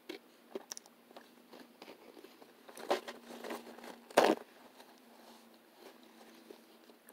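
Eating sounds: quiet chewing and small clicks of a fork, then a napkin rustling as it is lifted to the mouth, loudest about four seconds in.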